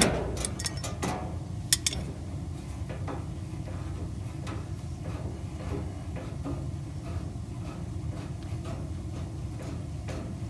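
Metal wrenches clinking on the dryer's gas line fitting as it is loosened: a sharp clank at the start, a few clicks in the first two seconds, then light scattered taps over a steady low background noise.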